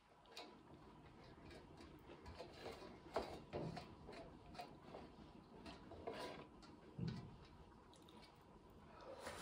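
Fingers scraping the last of the dal around a metal plate, with soft mouth smacks from eating by hand. Faint, with a few small clicks and smacks.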